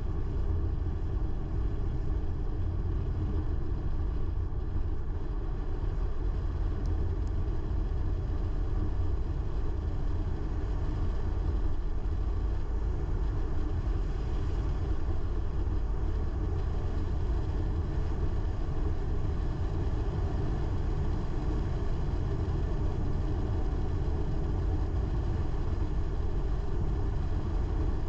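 Car being driven along a road: a steady low rumble of engine and tyre noise, even throughout.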